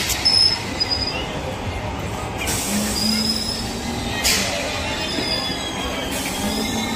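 Suburban electric local train (EMU) running past along the platform track: a steady rumble of the coaches with short, high-pitched wheel squeals coming again and again, and a few sharp knocks, about two seconds, four seconds and six seconds in.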